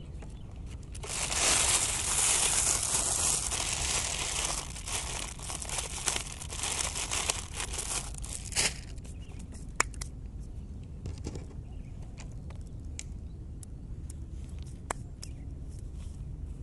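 Plastic bag crinkling and rustling close to the microphone for several seconds, then a few scattered small clicks and rustles, over a steady low rumble.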